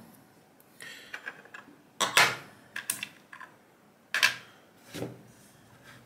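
Handling noise on a desk: an uneven series of sharp clicks and knocks, loudest about two seconds in, as a key and small metal lock-picking tools are picked up and set down.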